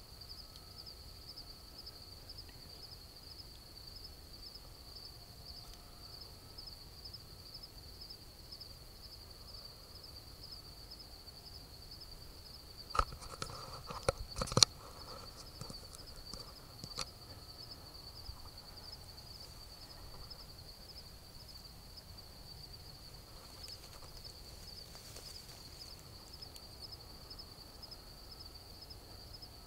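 Insects trilling steadily in a high, fast-pulsing buzz. A short cluster of knocks and clicks comes about halfway through, with a couple more soon after.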